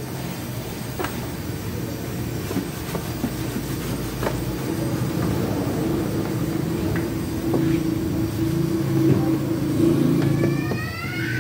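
A machine running with a steady hum, with a few scattered clicks and knocks; a short, high squeal comes near the end.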